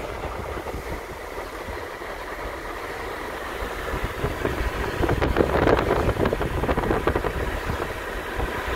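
Road noise of a moving car: a steady rumble of tyres and engine that grows louder and rougher for a few seconds about halfway through.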